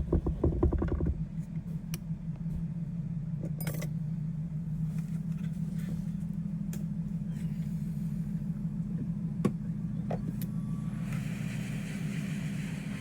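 A steady low hum, like a vehicle heard from inside, with scattered light clicks; a hiss comes up near the end.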